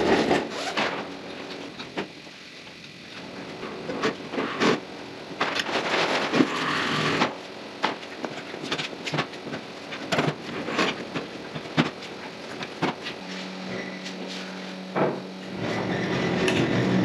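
Wheeled shop machinery, a table saw on a mobile base and a drum on casters, being rolled across a concrete floor: casters rattling and rumbling, with scattered knocks and clunks. A low steady hum runs for a couple of seconds near the end.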